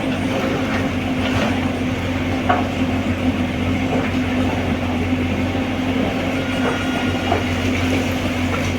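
Crawler excavator's engine running steadily under work, with a few short metallic clanks and squeaks over the hum.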